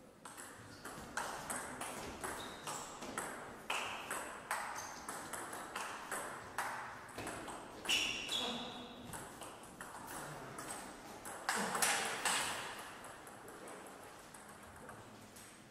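Table tennis rally: the ball clicking sharply off the bats and the Donic table, about two hits a second. The rally stops a little before the end.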